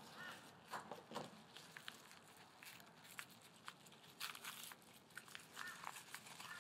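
Padded paper mailer torn open and peeled back by hand: quiet, intermittent paper crinkling and tearing with small crackles.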